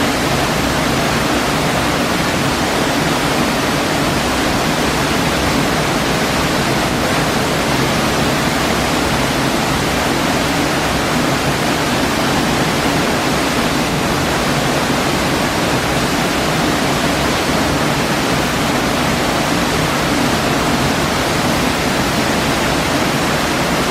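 Waterfall at St Nectan's Glen: a loud, steady rush of falling water that does not change.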